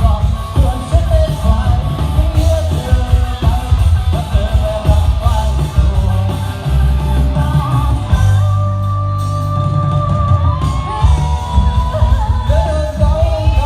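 Loud amplified music with a singer over a heavy, driving bass beat, with yells and whoops mixed in.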